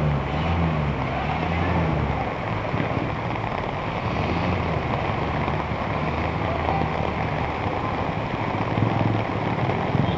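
Heavy rain and motor vehicles driving through a flooded street, water washing around their wheels. A nearby engine hums for the first two seconds, its pitch wavering, then fades under the steady rain noise.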